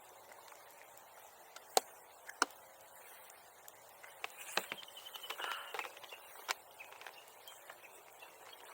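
A few sharp, separate snaps over a quiet outdoor background, the loudest two about two seconds in, with a stretch of rustling near the middle.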